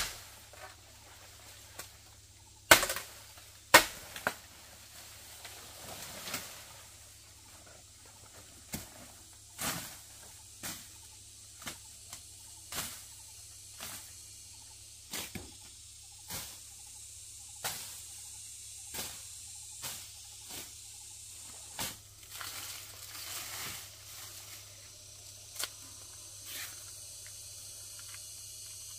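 A run of sharp knocks, irregularly spaced about one a second, the loudest few near the start.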